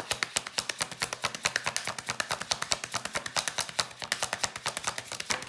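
Tarot cards being shuffled by hand: a rapid, even run of crisp card clicks, roughly a dozen a second.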